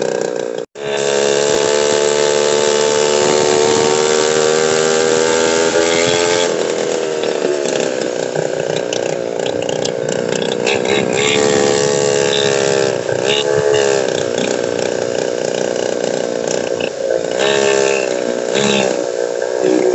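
Motorcycle engines running, their revs rising and falling several times as the bikes accelerate and pass close by. The sound cuts out for an instant under a second in.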